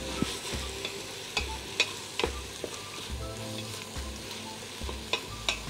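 Chopped onions and peppers sizzling as they fry in a stainless-steel pot, stirred with a wooden spoon that clicks against the pot a few times.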